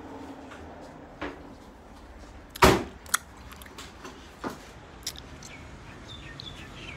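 Footsteps and a few knocks as someone walks through a doorway out onto a balcony, with one loud thud about two and a half seconds in and smaller clicks and knocks around it.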